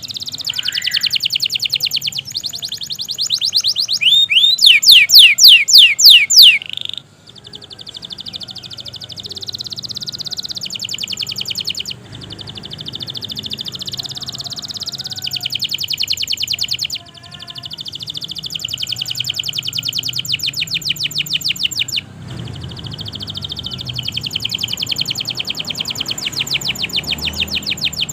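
Domestic canary in full, prolific song: long phrases of rapid high trills, broken by short pauses every few seconds, with a louder run of fast sweeping notes about four seconds in.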